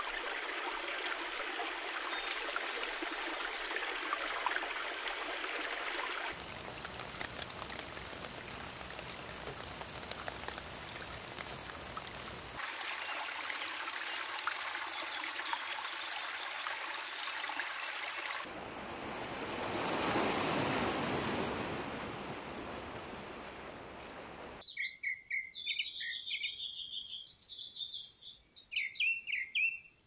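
Shallow stream water running over rocks, in several clips that change abruptly about every six seconds; one stretch swells and dies away about twenty seconds in. For the last five seconds the water gives way to birds chirping and singing.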